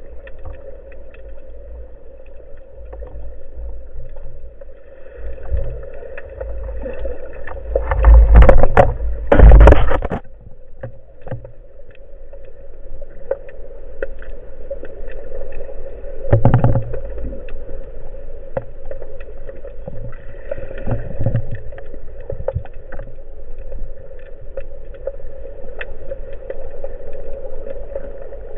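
Underwater sound from an action camera during a spearfishing dive: a steady muffled rush of water with scattered small clicks. There are loud bursts of water noise about eight to ten seconds in and again briefly about sixteen seconds in.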